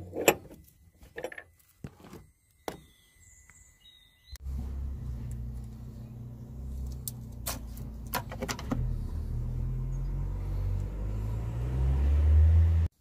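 A few light metallic clinks of a spanner on the strut's nuts. Then, about four seconds in, a steady low rumble starts. It swells near the end and cuts off suddenly.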